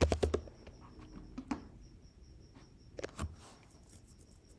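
A few faint computer keyboard clicks, one of them the key press that runs a typed terminal command, over quiet room tone with a faint steady high-pitched whine.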